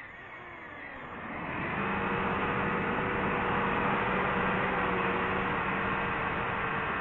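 DJI FPV drone's electric motors and propellers running under power, a steady whine over a rush of air, swelling about a second in as the drone pulls out of its dive and then holding steady.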